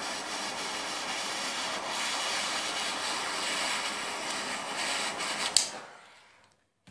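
Handheld butane torch lighter's jet flame hissing steadily as it heats a freshly wound 0.30 mm Kanthal coil until the wire glows, annealing it. A sharp click comes near the end, after which the hiss fades out.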